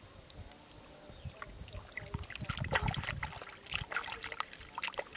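Hands squelching and splashing in wet mud and shallow muddy water while digging out and rubbing clean a freshwater clam, with irregular small splashes, drips and wet clicks.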